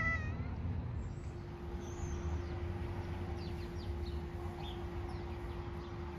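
A domestic cat's meow, ending about half a second in, followed by outdoor background: faint short bird chirps over a low rumble and a steady hum.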